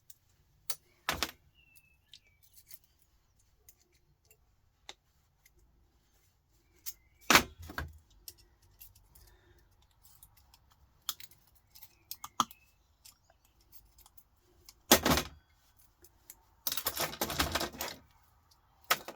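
Small metal scrap parts from a power-supply teardown being handled: scattered sharp clinks and knocks, with a longer burst of rattling clatter near the end.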